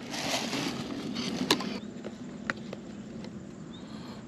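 Plastic weatherproof outlet cover being handled: a rustling scrape for the first couple of seconds with a sharp click about a second and a half in, then a few faint plastic ticks as it is set against the outlet box.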